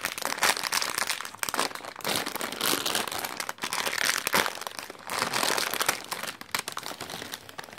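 Crinkly plastic snack bag being handled and pulled open: an uneven run of crinkling and crackling.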